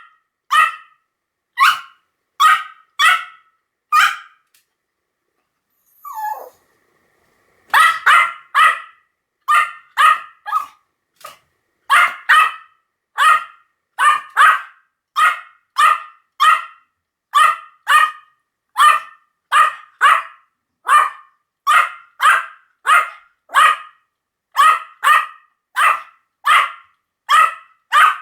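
Pomeranian barking over and over in short, sharp, high yaps at about two a second. About four seconds in the barking stops for some three seconds, broken by one brief falling sound, then starts again.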